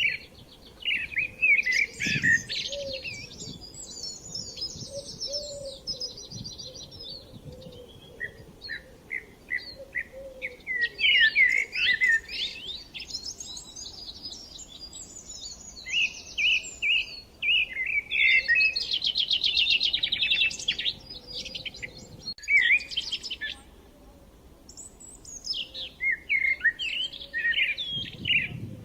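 Several songbirds singing at once, with overlapping chirps, quick trills and fast runs of repeated notes. The songs come in waves, busiest around the middle and toward the end.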